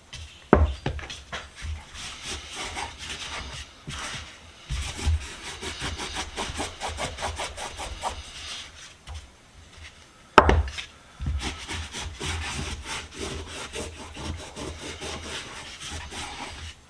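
Rapid rubbing and scrubbing strokes on a Kraeuter wrench freshly out of a Deox-C rust-remover bath, cleaning off the loosened residue. A sharp knock sounds about half a second in and another about ten seconds in.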